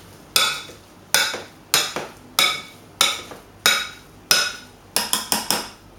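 A metal spoon knocking against a glass mixing bowl while breaking up and mashing cooked potato and carrot. Each stroke is a sharp clink with a short ring, about one and a half a second, coming quicker near the end.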